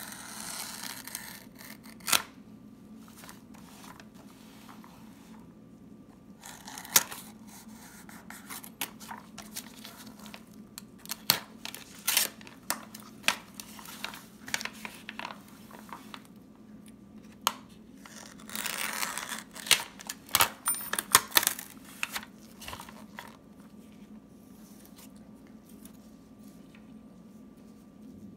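A FedEx Express shipping envelope being slit with a craft knife and torn open by hand. Rustling and crinkling come with many sharp crackles and snaps, and a longer stretch of tearing about two-thirds of the way through. It quiets down for the last few seconds.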